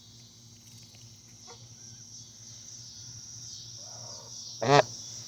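A goose gives one short honk near the end, over steady chirring of crickets.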